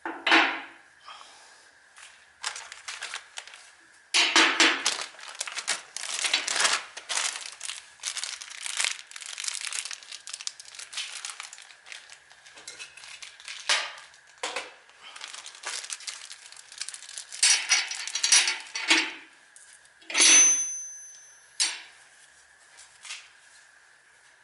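Hands working with metal tools and parts: a long run of rustling, clattering and knocking, with a sharp ringing metallic clink about twenty seconds in. A faint steady high tone runs underneath.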